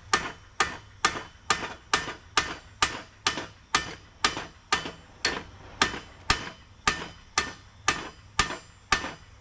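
A big hammer striking again and again in a steady rhythm, a little over two blows a second, each blow a sharp hit with a short ring.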